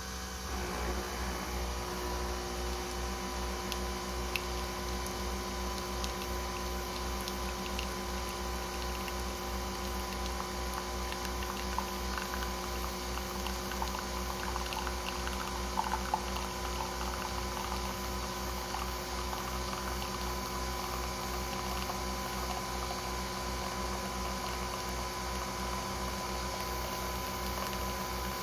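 Nespresso Vertuo capsule machine brewing: the pump and the spinning capsule run with a steady hum over a fast low pulsing, and coffee pours in a thin stream into a ceramic mug.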